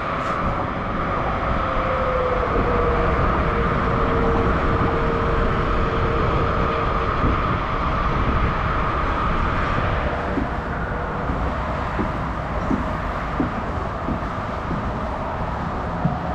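Yamaha MT-10 SP's crossplane inline-four running through an Akrapovic titanium slip-on exhaust, a steady even rumble with no big revs.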